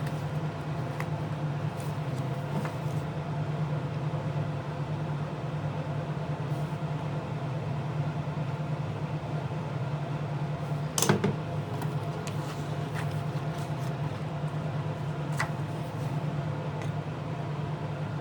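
Steady low mechanical hum with a few small, sharp clicks and taps of tools on a smartphone's parts, the sharpest about eleven seconds in.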